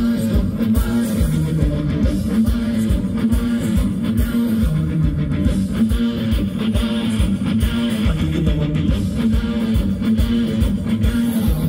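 Live rock band playing: electric guitar and bass over a steady drumbeat, with no singing.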